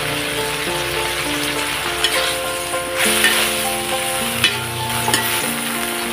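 Water spinach, genjer and sausage sizzling in a hot metal wok while a metal spatula stirs and tosses them, with a few sharp scrapes and knocks of the spatula against the pan.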